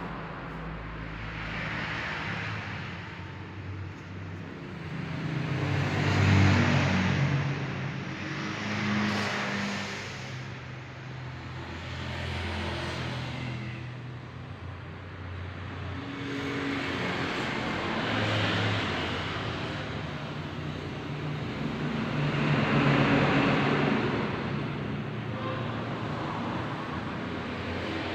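A pregnant woman snoring in her sleep, a 'wur wur' snore on each breath. Each snore is a low buzzing rattle with a breathy hiss and swells up and fades, about every three to five seconds.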